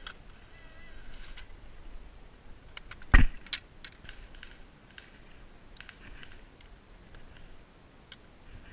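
Clicks and clatter of an airsoft gun being handled. There is one loud sharp snap about three seconds in as its folding metal stock locks open, followed by lighter clicks from working the gun.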